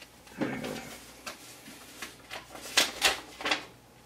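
Sharp small clicks and taps of a plastic buffer-light unit being handled and pressed onto model railway track, about five of them spread through the second half, after a brief low voice sound near the start.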